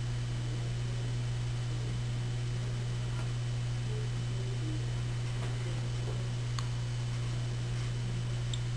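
Steady low electrical hum over a faint hiss, with a thin high whine and a couple of faint ticks.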